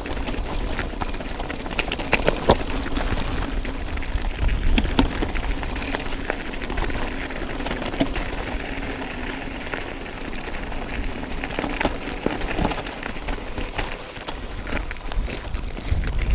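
Mountain bike rolling down a rocky dirt trail: tyres crunching over gravel and rocks, with a constant patter of small clicks and rattles from the bike. Wind rumbles on the microphone underneath.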